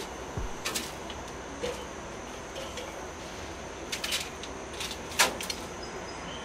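Metal grill tongs clicking and scraping against the Weber kettle's cooking grate and an aluminium foil pan as cooked chicken legs are lifted off. It is a scattered handful of sharp clacks, the loudest a little past five seconds in.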